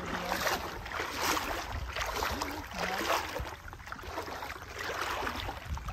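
Shallow sea water lapping and sloshing in repeated washes about once a second, over a steady low rumble of wind on the microphone.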